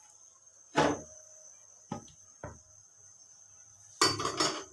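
Cookware clanking on a large cooking pot, a glass lid and a spoon knocking against it. A loud clank comes about a second in, two small knocks follow in the middle, and another loud clatter comes near the end. A steady high-pitched tone runs underneath.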